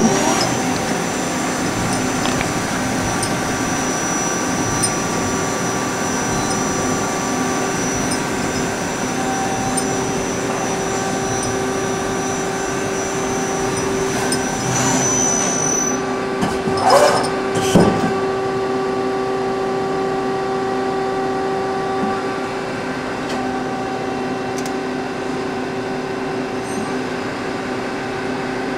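Okuma & Howa ACT-35 CNC lathe running a programmed cycle, smooth and quiet: a steady machine hum with a high whine that rises slightly and stops about halfway through, and two short louder sounds just after.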